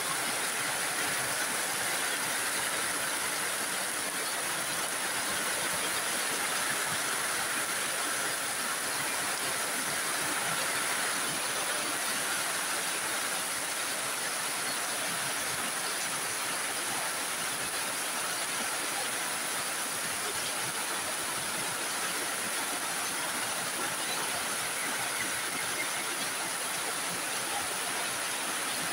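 Heavy rain falling steadily, a continuous even rush, with water streaming off the roof edges and splashing onto the wet ground.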